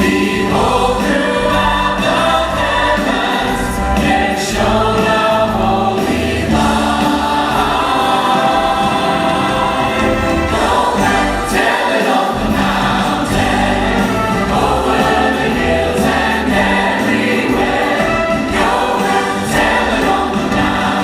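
Church choir singing a Christmas song with instrumental accompaniment.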